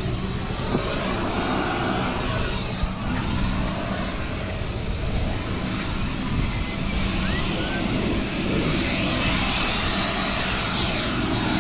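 Steady engine hum with a rushing noise on an airfield apron, the hiss swelling louder near the end.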